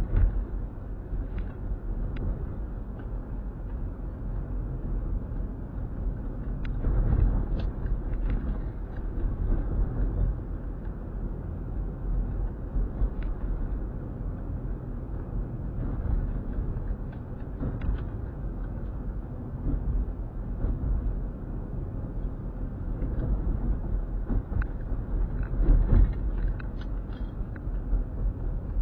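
Car cabin noise picked up by a dashcam microphone: a steady low rumble of engine and tyres on the road while driving, with occasional short knocks and clicks.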